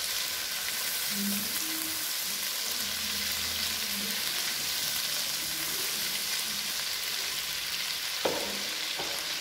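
Shallots, garlic and blended bird's eye chili paste sizzling steadily in hot oil in a non-stick wok while a silicone spatula stirs them. A single sharp tap sounds about eight seconds in.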